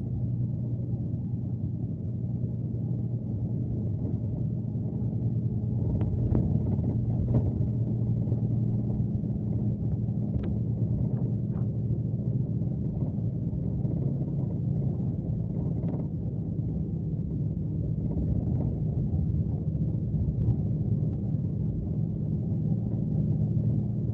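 Scania K370C coach engine running steadily under way, a low even drone heard from inside the bus, with a few light clicks scattered through it.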